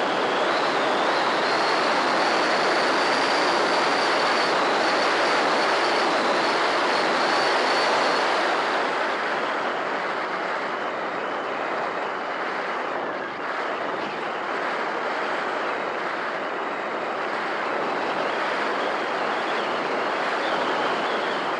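Airflow rushing over the microphone of a camera riding on an Easyglider Pro RC glider in flight, a steady noisy rush. For the first eight seconds or so a thin high whine from the glider's electric motor and propeller sits over it; then the whine stops and the rush drops a little, as the plane glides on.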